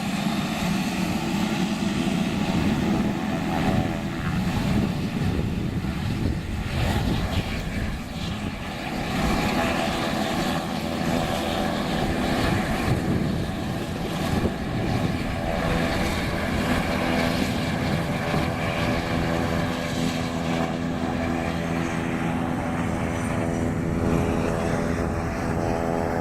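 Aircraft engines running with a steady, loud drone of several even tones.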